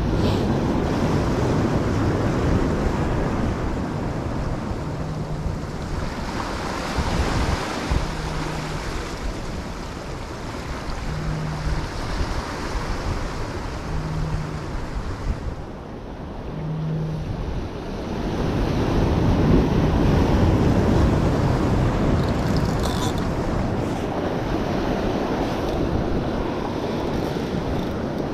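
Small ocean waves washing and breaking over the jetty's boulders, surging louder twice, with wind buffeting the microphone. A faint short low tone sounds about every three seconds for a while.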